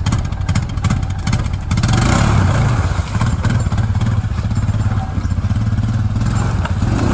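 Honda Rancher 420 ATV's single-cylinder four-stroke engine running under load as the ATV is driven and pushed up out of a creek. The engine gets louder from about two seconds in, with water splashing around the wheels.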